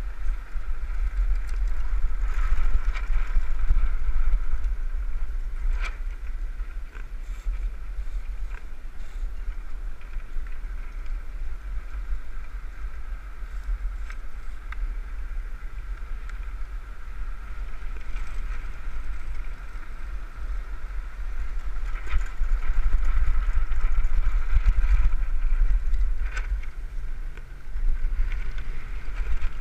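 Land-sailing cart with a windsurf sail running fast over hard beach sand: wind rushing over the cart-mounted microphone with a low rumble and a steady hum from the rolling cart. It grows louder twice, once a couple of seconds in and again about two thirds of the way through.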